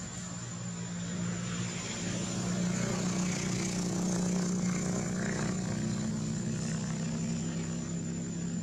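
A steady low engine drone that grows a little louder over the first few seconds.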